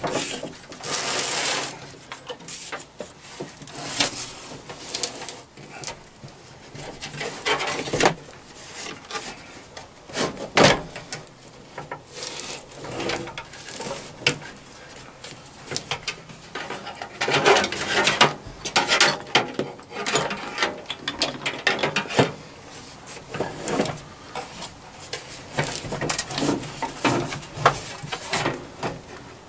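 Heathkit SB200 amplifier's metal chassis being slid out of its perforated steel case: irregular scraping and rubbing of metal on metal, with scattered knocks and clunks as the case is handled on the wooden bench, the loudest knock about ten seconds in.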